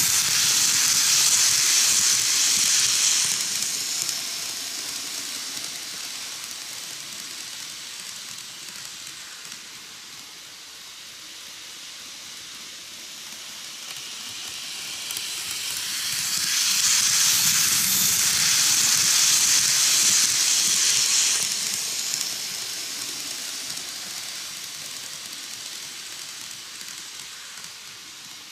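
KATO N-gauge 185 series 200 model electric train running around the track, passing close twice: a hissing, rushing run of wheels on the rails that swells at the start, fades away, and swells again about two-thirds of the way through before fading.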